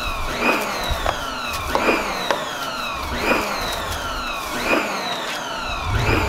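Background music: an electronic track with falling synth sweeps and a rising-and-falling, siren-like tone repeating about every one and a half seconds over low bass hits.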